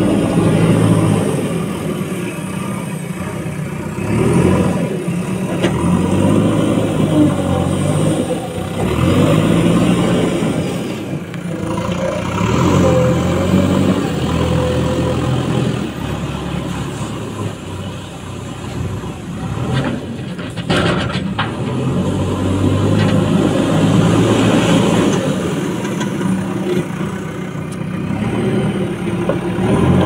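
JCB 4DX backhoe loader's diesel engine running and revving up and down in repeated swells as it works the hydraulics to lift and dump the front loader bucket. A few sharp knocks come about two-thirds of the way through.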